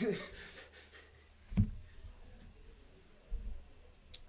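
Playing cards being handled on a table, with one sharp thump about a second and a half in, over a low steady hum.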